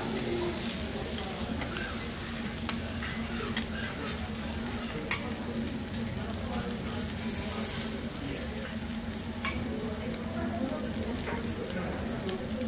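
Thick block of A5 wagyu sirloin sizzling as it sears on a steel teppanyaki griddle, with scattered sharp ticks and pops, the loudest about five seconds in. A low steady hum runs underneath.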